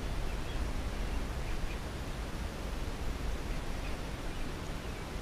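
Wind buffeting the microphone: a steady low rumble with a faint hiss over it.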